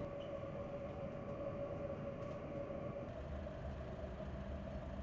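Steady machinery hum aboard a ship, holding one clear tone. About three seconds in the hum shifts slightly and a low rumble comes in.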